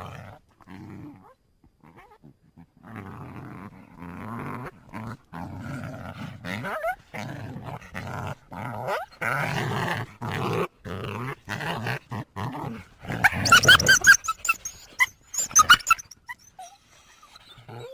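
Coyote growling in a run of low, rasping growls broken by short pauses, then a burst of loud, high-pitched yips and whines near the end.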